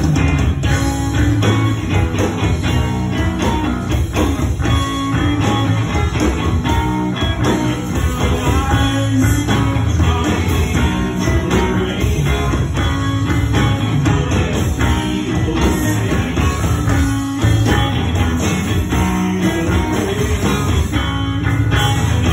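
Live rock band playing loud, steady rock: electric guitars over a drum kit.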